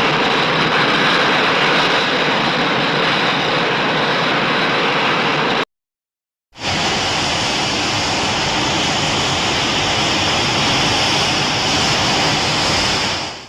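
Godzilla's atomic breath film sound effect: a loud, steady hiss lasting about six seconds, cut off by a brief silence, then a second, longer hiss that fades out near the end.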